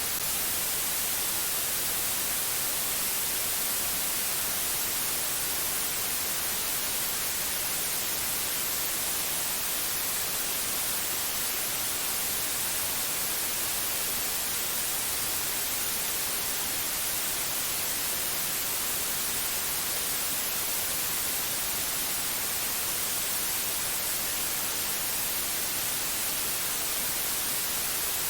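Steady white noise: an even, unbroken hiss, brightest in the highest frequencies.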